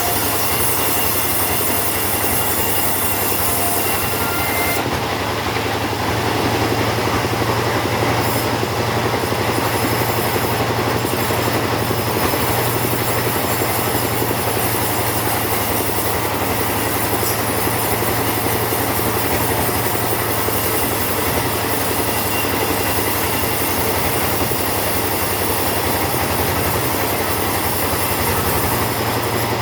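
Two-stroke chainsaw running steadily at high revs while cutting lengthwise through a teak log.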